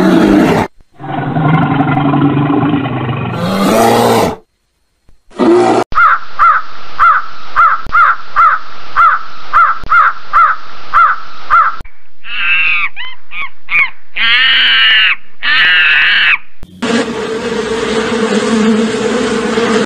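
Different animal calls cut together back to back, each clip stopping abruptly. The middle holds a run of about a dozen short, evenly spaced calls, about two a second, followed by a few higher calls and then a steady, held call in the last few seconds.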